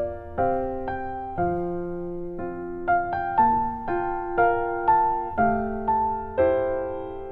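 Background piano music: a slow melody of struck notes, about two a second, each ringing and fading before the next.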